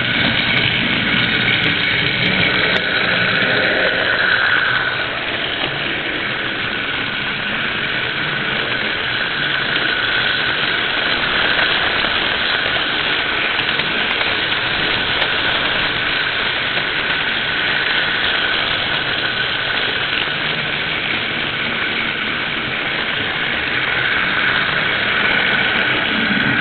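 Model train running along its track, heard from on board: a steady whirring rumble of the motor and wheels on the rails, a little louder for the first few seconds and again near the end.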